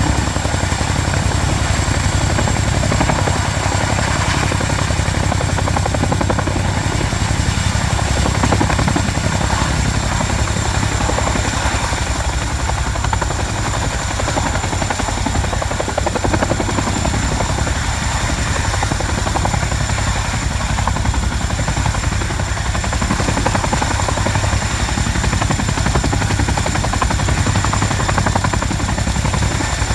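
RAF Boeing Chinook tandem-rotor helicopter hovering low and close by, its two rotors and twin turboshaft engines running at steady power. The sound is a continuous loud rotor noise with a rapid even beat and a steady high turbine whine over it.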